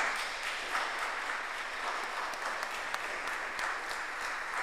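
Small congregation applauding, a steady patter of clapping hands.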